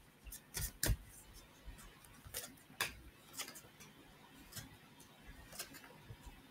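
Tarot cards being shuffled by hand: a run of faint, irregular clicks and snaps, about one or two a second.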